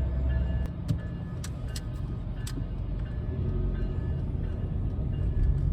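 A freight train rolling by: a steady low rumble with a few sharp clicks about one and a half to two and a half seconds in.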